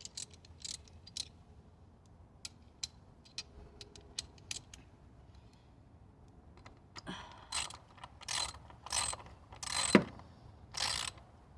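Ratchet wrench clicking as a spark plug is tightened: a few light clicks at first, then a run of louder ratcheting strokes from about seven seconds in, ending with the plug tight.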